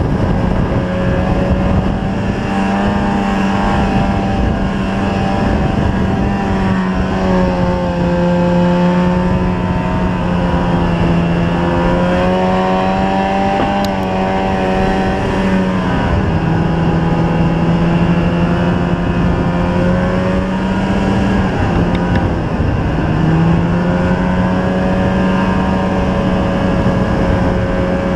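Snowmobile engine running steadily under throttle, heard from on board. Its pitch rises and falls gently with the throttle and drops briefly about halfway through and again a few seconds later.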